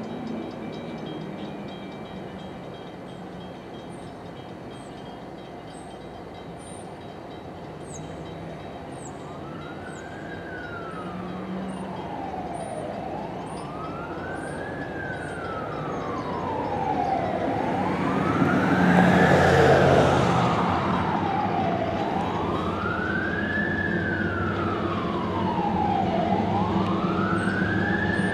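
A siren wailing, rising and falling slowly about every four to five seconds, starts about nine seconds in. It sounds over the steady low drone of the approaching train's GE ES44AC diesel locomotives. A louder rush of noise swells up about two-thirds of the way through.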